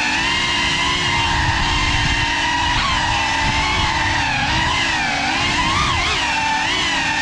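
GEPRC Cinelog35 FPV cinewhoop's brushless motors and ducted propellers whining, the pitch sliding up and down with the throttle, with a low rumble of prop wash on the onboard GoPro's microphone.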